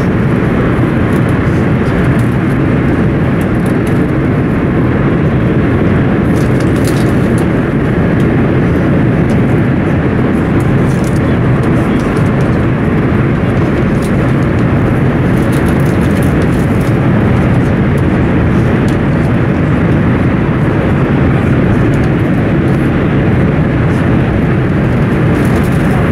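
Passenger-coach interior noise of a Class 395 'Javelin' electric multiple unit running at speed: a loud, steady rumble and rush from wheels and air, with a few faint ticks.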